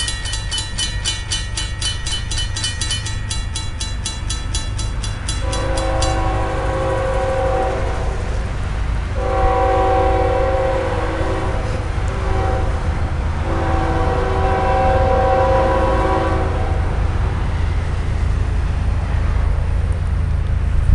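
Railroad crossing bell ringing rapidly as the gates come down, stopping about six seconds in. Then a CSX freight locomotive's horn sounds the grade-crossing signal, long, long, short, long, over a steady low rumble of the approaching coal train.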